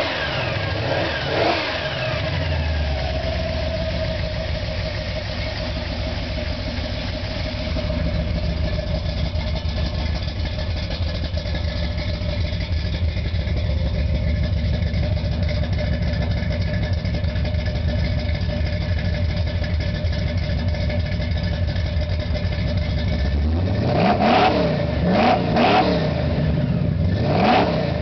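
1955 Ford truck's V8 running: a couple of revs die away in the first two seconds, it idles steadily, then several quick throttle blips come in the last four seconds.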